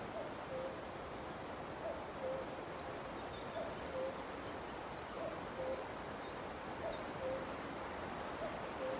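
Common cuckoo calling its two-note "cuck-oo", the second note lower, six times at an even pace of about one call every one and a half seconds, over a steady wind hiss. A few faint high chirps from small birds.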